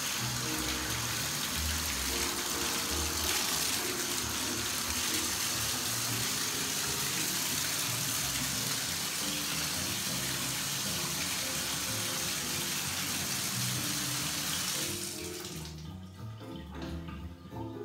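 Bathtub faucet water running in a steady rush over and through a trombone's tuning slide as it is rinsed, shut off near the end.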